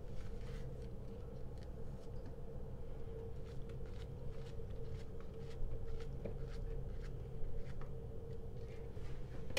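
Knife cutting a peeled banana into chunks that drop into a plastic blender cup: a run of small, soft clicks and taps, over a steady low hum.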